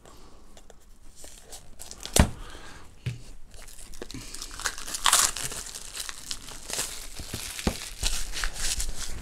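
Clear plastic shrink-wrap on a small cardboard earbud box being slit with a knife, then torn and crinkled as it is pulled off. A single sharp click comes about two seconds in.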